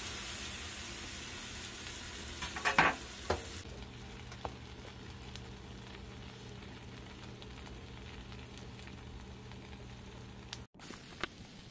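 A grilled sandwich sizzling in a frying pan, a steady frying hiss. A few short knocks come about three seconds in, after which the sizzle is a little softer.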